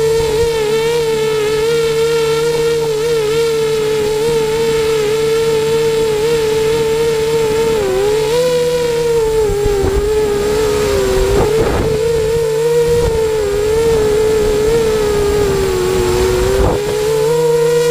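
Eachine Racer 250 quadcopter's brushless motors and propellers whining steadily, the pitch wavering and dipping as the throttle changes, heard from the onboard camera. Partway through, a rushing noise joins the whine.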